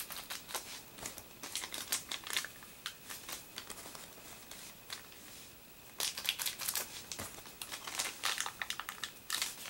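Small plastic parts bag crinkling and crackling in the hands as it is opened to take out the part inside. The crackles come in bursts: busy at the start, sparser in the middle, and densest from about six seconds in.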